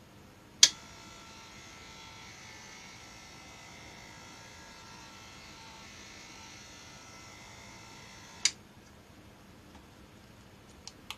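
A small electric motor is switched on with a sharp click, runs with a steady whirring buzz for about eight seconds, and is switched off with another click. A few faint ticks follow near the end.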